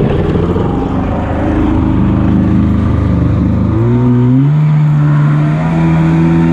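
Yamaha Superjet stand-up jet ski's 701 two-cylinder two-stroke engine running under way, with water noise from the hull. The revs climb about four seconds in and then hold steady.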